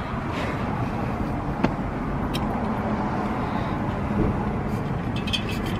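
Car engine running, heard from inside the cabin as a steady low hum and rumble, with a couple of light clicks.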